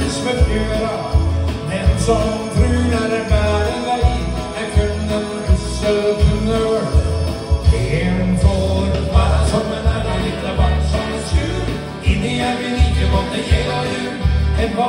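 A man singing into a handheld microphone, amplified over accompanying music with a steady beat.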